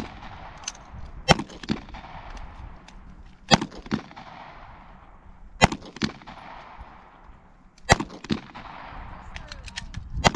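Rifle and pistol gunshots on an open range. Sharp single shots come every two seconds or so, several with a second shot close behind, and each trails off in a long echo.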